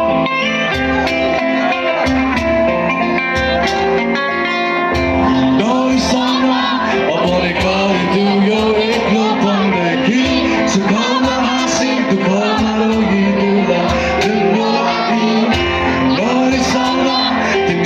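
Live band music with guitar, and a voice singing from about five seconds in.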